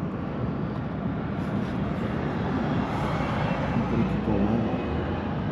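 Steady rumble of a motor vehicle's engine running close by, swelling a little about three seconds in.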